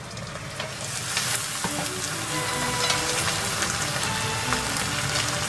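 Eggs and ham frying in oil in a frying pan, a steady sizzle with small crackles and spits that swells about a second in.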